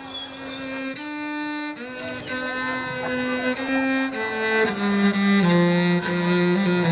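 Cello played with the bow in slow, long held notes, the melody stepping lower in the second half; the sound fades in at the start.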